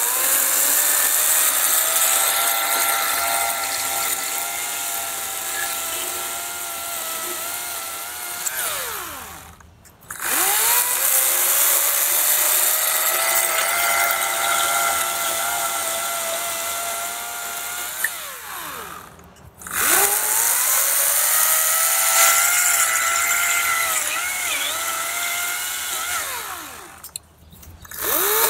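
EGO 56-volt cordless 14-inch chainsaw bucking a dead tree trunk into firewood: three runs of about eight seconds each, the motor whine rising as the trigger is pulled, dipping slightly under cutting load, and winding down when released, with a fourth run starting at the very end.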